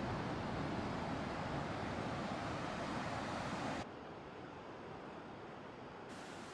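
Steady surf and wind noise on a beach, with no distinct events; it drops abruptly to a quieter version of the same noise about four seconds in.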